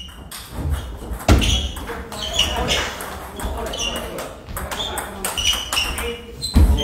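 Table tennis rally: the celluloid ball clicks sharply off paddles and the table many times, with two heavy thumps, about a second in and near the end. Voices carry across the hall.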